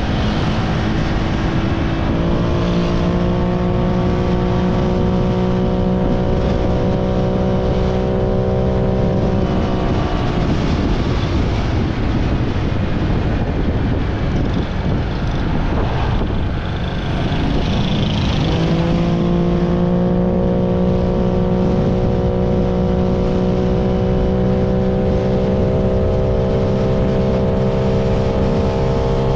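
Honda Click V3 scooter engine at full throttle, loud, fitted with a mushroom air filter on its CVT intake. Its pitch climbs and then holds steady at speed. The engine tone is swamped by rushing wind noise for several seconds near the middle, then climbs and holds steady again.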